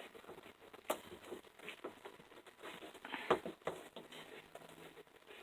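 Faint clicks, taps and rattles of door-handle parts being handled and fitted together by hand, with two sharper clicks about one and three seconds in.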